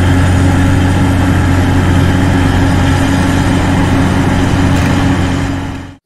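Crawler crane's heavy engine running steadily, fading out near the end.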